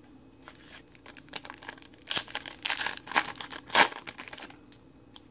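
Foil trading-card pack being torn open and its wrapper crinkled: a run of irregular crackling crinkles lasting about three seconds, loudest in the middle.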